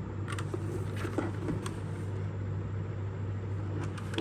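Steady low background hum, with a few faint clicks and knocks as the keyboard is handled and turned over.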